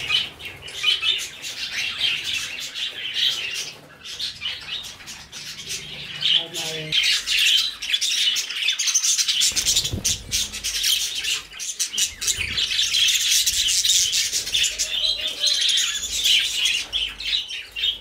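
A flock of budgerigars chattering, a dense, continuous mix of quick high chirps and warbles.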